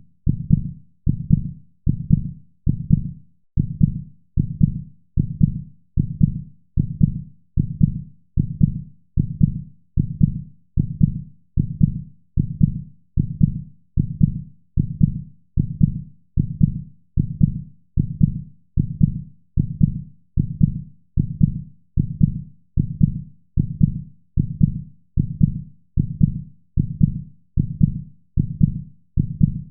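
Heartbeat sound beating steadily at about one beat a second, each beat a low double thump (lub-dub).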